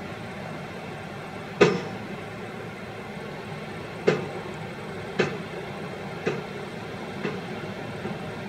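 Tipper dump truck's diesel engine running steadily, with six sharp metallic bangs about a second apart, from about a second and a half in, each fainter than the last: the free-hanging tailgate of the dump body banging shut as the emptied body comes down.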